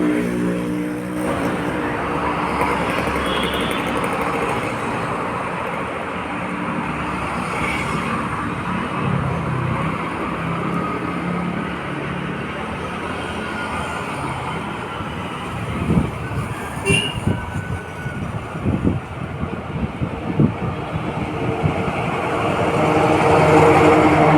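Steady street traffic noise from passing motor vehicles, with a cluster of short clicks and knocks about two-thirds of the way through.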